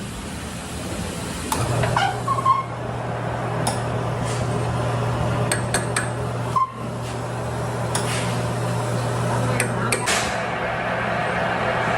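Metal tools knocking and clinking on metal in a truck workshop, with a machine starting up a steady low hum about a second and a half in that keeps running.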